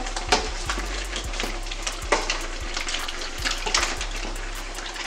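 A purple plastic spoon scooping seafood out of a large aluminium stockpot of seafood boil: uneven knocks and scrapes against the pot over a steady hiss.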